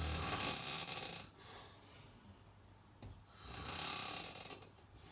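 Snoring: two long snores, the first at the start and the second about three seconds in, each lasting more than a second.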